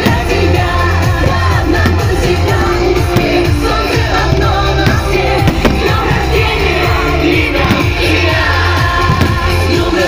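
Pop music with singing over a steady bass beat.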